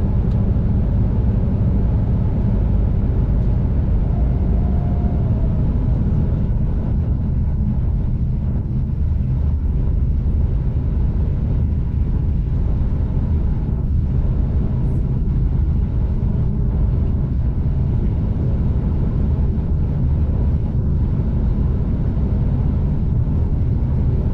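Steady low rumble of a V/Line passenger train running along the line, heard from on board.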